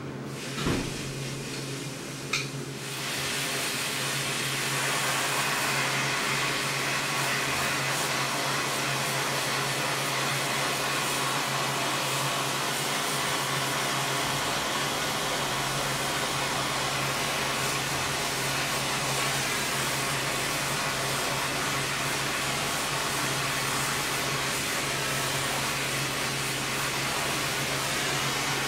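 Gas torch flame burning with a steady hissing rush, heating the steel wrench so it can be bent. The torch starts about two and a half seconds in and holds an even level.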